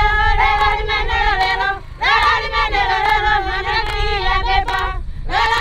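High voices singing together in long phrases, with a short break about two seconds in and another near the end.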